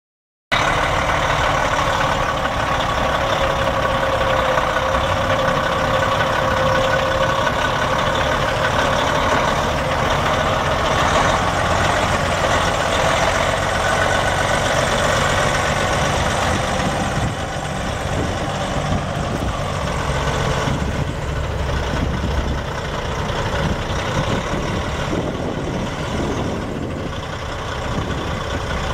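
A 2006 International TranStar 8600 semi tractor with a Caterpillar C13 Acert 12.5-litre inline-six turbo diesel, running as the truck pulls forward and turns. The sound starts about half a second in and gets a little quieter a bit past halfway.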